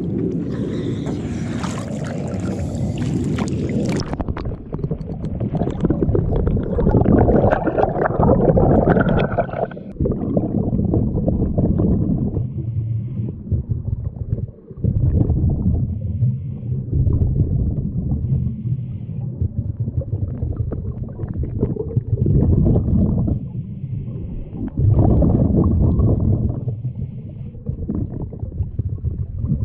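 Splashing as the camera goes under, then a scuba diver's breathing heard underwater: muffled rumbling and gurgling of regulator air and exhaled bubbles, with louder surges every several seconds.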